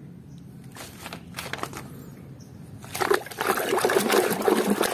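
A hand sloshing and rummaging through muddy water in a plastic tub, starting about three seconds in after a quieter stretch of light handling noise.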